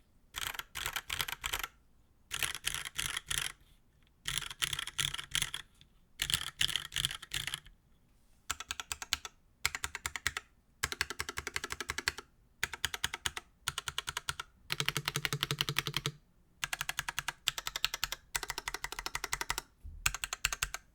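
Typing on a top-mount mechanical keyboard fitted with dry, unlubed Cherry MX2A Black linear switches on a stainless steel plate, under GMK keycaps. The typing comes in bursts of quick keystrokes of a second or two each, with short pauses between them.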